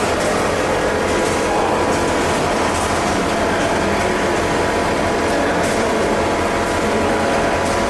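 Plastic colour sorting machines running: a loud, steady mechanical din with a few faint steady tones in it.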